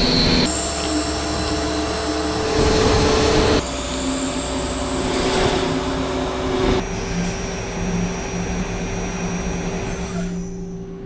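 DN Solutions Puma 2600SY II CNC lathe running and cutting metal: a steady machine noise with a few steady whining tones. The sound changes abruptly about half a second in, again near four seconds and near seven seconds, and grows quieter near the end.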